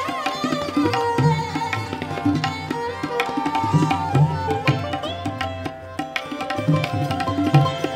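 Hindustani classical music for a Kathak dance: tabla strokes keep a slow, steady rhythm beneath a melody line that slides between notes.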